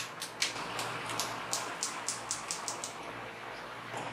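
A run of about a dozen light plastic clicks that come faster toward the end, from hard plastic toy guns being handled, over a steady low hum.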